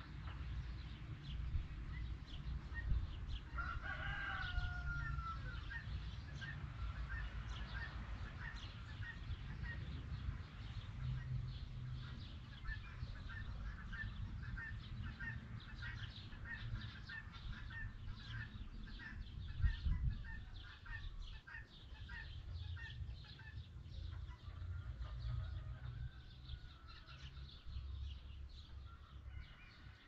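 A rooster crows once, briefly, about four seconds in. A small bird then repeats a short chirp two or three times a second for some fifteen seconds, over a steady low rumble.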